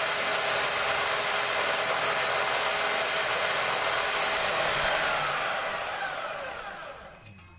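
Homemade sander driven by an electric hand drill, running with a steady whirring hiss, then switched off about five seconds in, its pitch falling as it winds down.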